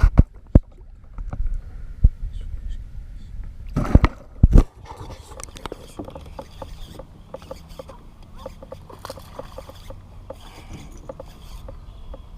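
Several loud knocks and thumps on a small fishing boat, the loudest about four seconds in, followed by a steady low rumble with small scattered clicks.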